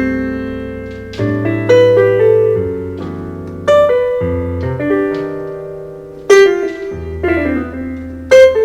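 Stage keyboard played with a piano sound: full chords over low bass notes, struck afresh every second or two and left to fade, with the hardest-struck chords about halfway through and near the end.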